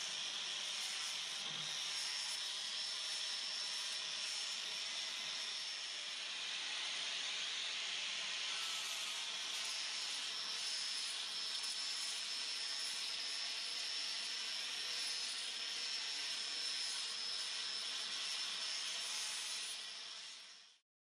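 Electric power sander running steadily: a high whine over a hiss, fading out near the end.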